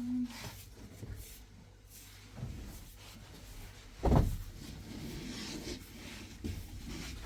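Light knocks and rustling, with one loud thump a little after four seconds in.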